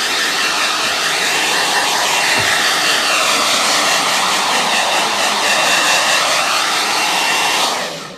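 Handheld hair dryer blowing steadily close to the microphone, with a faint high whine, drying acrylic paint on a wooden box. It switches off near the end.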